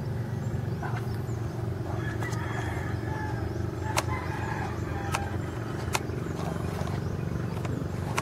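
A steady low hum runs throughout, with a few sharp clicks and faint short higher calls in the background.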